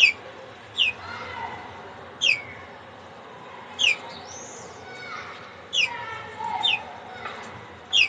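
Canary calling: about seven short, sharp notes, each sliding steeply down in pitch, repeated every second or two, with fainter gliding chirps between them.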